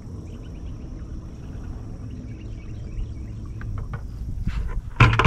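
Low, steady wind and water noise around a boat, with faint light clicks and rustling as a monofilament cast net is gathered for a throw. A loud knock comes about five seconds in.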